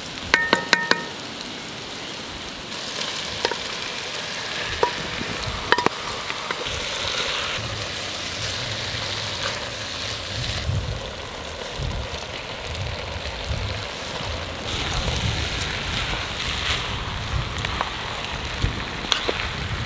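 Meat and carrots sizzling in a pot over a wood fire while a wooden spoon stirs them. A few ringing metal clinks in the first second.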